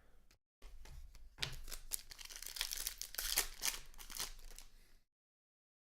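Foil pack wrapper of a sports-card pack being torn open and crinkled, a dense crackling rustle that stops abruptly about five seconds in.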